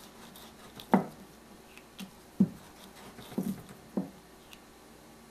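Wooden rolling pin knocking on a wooden board while small puris of semolina dough are rolled out: a few dull knocks, irregularly spaced about a second apart.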